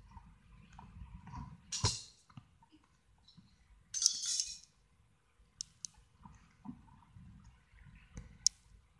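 Handling noise from a handheld camera: rustling and scattered sharp clicks, with two louder rustling bursts about two and four seconds in and a sharp click near the end.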